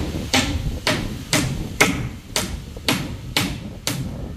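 Steady, rhythmic knocking of a hand tool striking something, about two blows a second.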